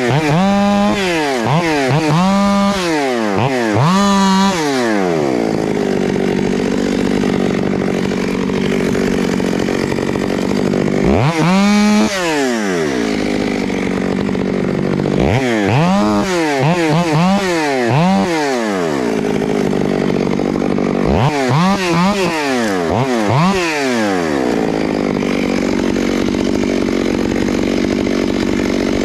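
Chainsaw boring into a tree to set up a bore-and-release felling cut. It runs steadily at full throttle under load, broken by quick revs that rise and fall in pitch, mostly in runs of three, with a single one about halfway through.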